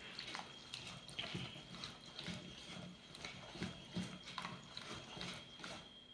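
Wire whisk stirring thick, fruit-laden cake batter in a steel bowl, the wires knocking and scraping against the bowl in faint, irregular clicks about two or three a second.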